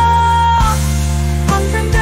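Music from a pop song composed with AI: a held melody note over a steady bass line, then a new melodic phrase starting about one and a half seconds in.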